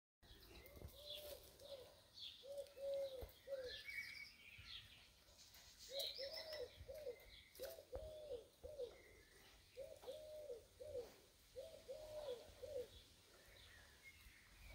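A dove cooing in repeated phrases of about three notes, six phrases in all, while smaller birds chirp faintly higher up.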